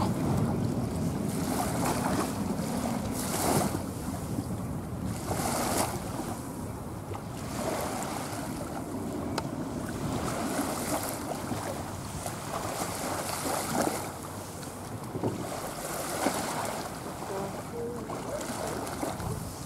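Turboprop drone of an ATR 72-600's twin Pratt & Whitney PW127M engines as the airliner climbs away after passing overhead, its low rumble fading steadily. Wind buffets the microphone in repeated gusts throughout.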